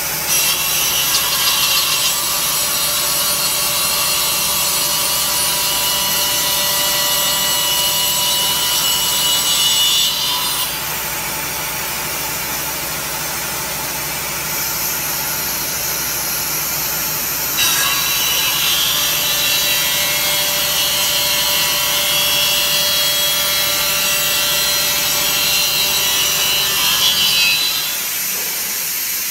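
A circular saw blade on a CNC router's spindle head cutting a wood panel: steady cutting noise with a high whine. It is louder for the first ten seconds or so, eases off for several seconds, then is louder again for another ten seconds, ending near the close.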